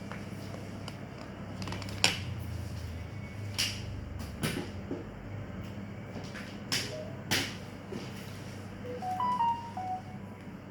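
Several sharp clicks and knocks, as of objects being handled, over a steady low hum, with a few short high tones near the end.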